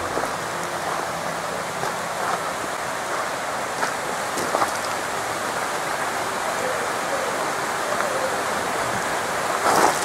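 Mountain stream rushing steadily over rocks, a constant even sound of white water.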